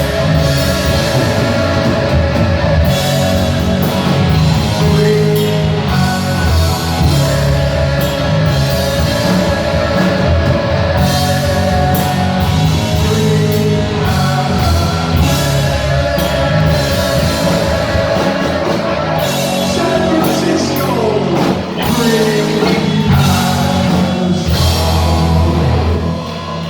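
A heavy metal band playing live at full volume, with distorted electric guitars, bass and drum kit. The music stays steady and loud, then eases slightly just before the end.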